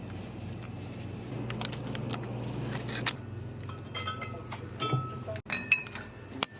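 Light clinks and clatter of tableware, some ringing briefly, over a low steady hum, in short clips cut together.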